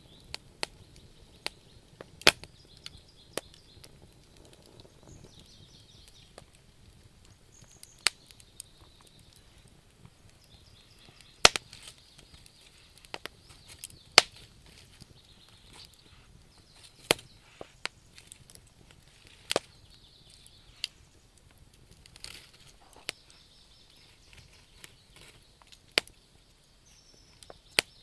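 Wood fire crackling: irregular sharp pops and snaps, a few much louder than the rest, over a low steady hiss of the flames.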